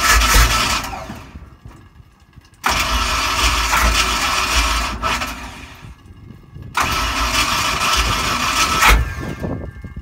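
Big-block V8 of a Ford F100 pickup cranked on the starter for a cold start at 17 degrees. It turns over in repeated pulsing bursts of about two seconds, a few seconds apart, each winding down without the engine settling into a steady idle.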